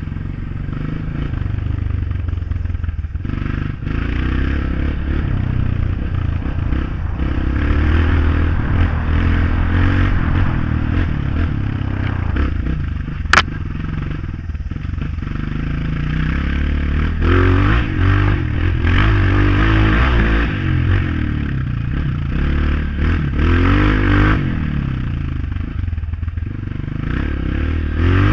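Honda CRF motorcycle engine running under way, its pitch rising and falling repeatedly as the rider opens and closes the throttle. A single sharp click cuts through about halfway.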